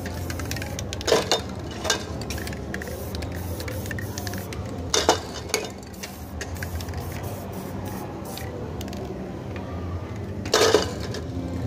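Aerosol spray-paint cans giving several short, sharp hisses, about five in all, the loudest near the end.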